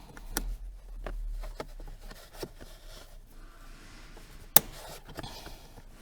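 Light scraping and small clicks of metal and plastic parts being handled as a handbrake equalizer bar is fitted onto its cables, with one sharp click about four and a half seconds in.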